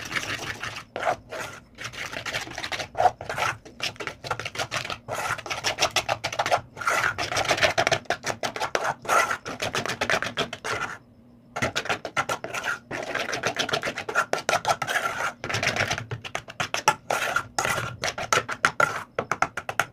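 Metal spoon stirring a flour-and-water batter in an old metal pot, scraping and clicking against the pot's sides and bottom in quick repeated strokes, with a pause of about a second midway.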